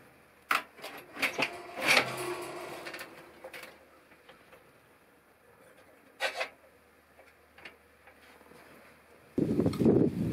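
Metal clanks at a cast-iron wood stove as the fire is tended, the loudest about two seconds in with a short ringing after it, and a single click about six seconds in at the stove door's latch. Near the end, a busy rustling and knocking of gear being handled.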